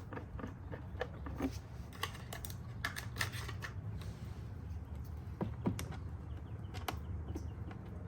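Irregular light clicks and taps of small tools and parts being handled, some in quick clusters, over a steady low hum.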